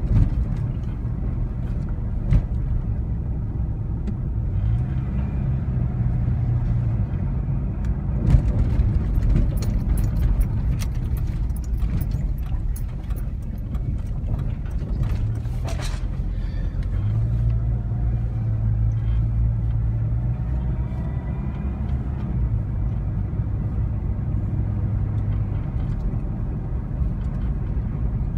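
Car engine and road noise heard from inside the cabin while driving slowly: a steady low rumble with an engine hum that shifts in pitch now and then. A scatter of short clicks and knocks comes about eight to sixteen seconds in.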